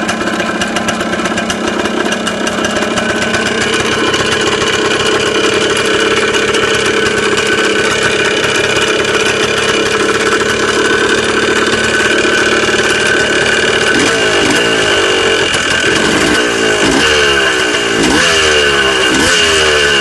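Yamaha DT 180 two-stroke single-cylinder engine running steadily, then revved in a series of short blips, about one a second, from roughly two-thirds of the way through. It carries a strange knocking noise that the owner takes for piston slap (the piston skirt knocking).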